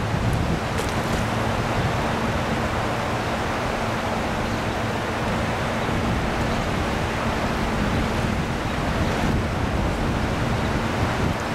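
Wind blowing on the microphone over open river water, a steady rushing noise with a faint low hum running under it.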